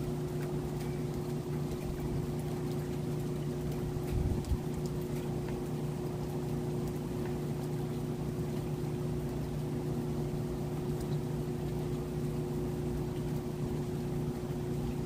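Steady mechanical hum, a motor or pump running at one even pitch, over a faint hiss of rain. A brief low thump about four seconds in.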